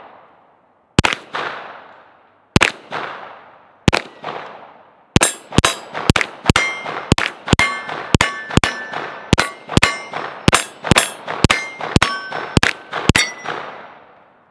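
Gunfire from a 9mm STI Combat Master 2011 pistol: three spaced shots, then a rapid string of about thirty shots at roughly four a second, many in quick pairs. Steel plate targets ring with each hit during the rapid string.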